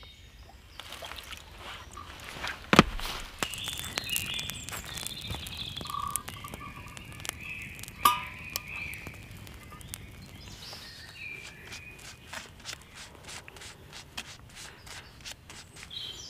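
Birds singing in woodland over scattered clicks and knocks of camp gear being handled, with a sharp knock about three seconds in and a ringing metallic clink about eight seconds in.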